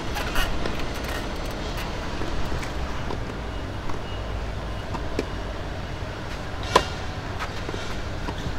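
Tennis ball struck by rackets in a rally: a few sharp knocks over a steady low outdoor rumble. The loudest hit comes near the end.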